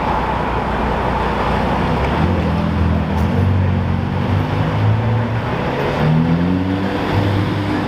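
City traffic noise, with a Ferrari SF90 Stradale's twin-turbo V8 coming through from about two seconds in. Its engine note climbs in pitch near the end as the car accelerates.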